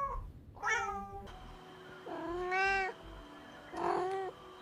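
Cats meowing: three separate meows spaced about a second and a half apart, the first falling in pitch and the second rising and then held.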